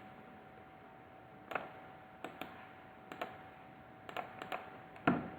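Scattered clicks of a computer keyboard and mouse, about eight separate clicks with the loudest about five seconds in, over a faint steady hum.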